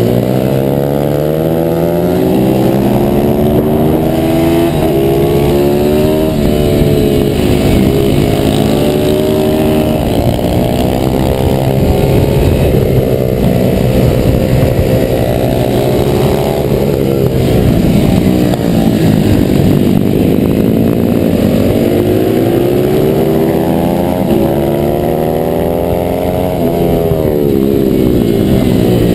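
Supermoto pit bike's YX 140 cc single-cylinder four-stroke engine at racing pace, heard from on board: its pitch repeatedly climbs as it revs out through the gears and drops off into the corners.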